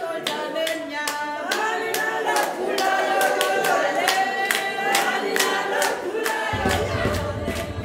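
A group of voices singing together over steady rhythmic hand clapping. A low rumble comes in near the end.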